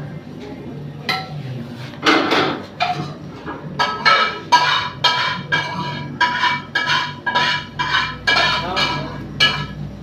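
Metal utensils clinking and striking against metal, a run of sharp ringing clinks about one to two a second, over a steady low hum.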